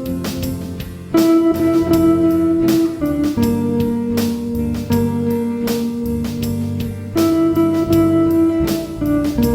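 Guitar playing a country gospel melody in long held notes over a backing track with a steady drum beat.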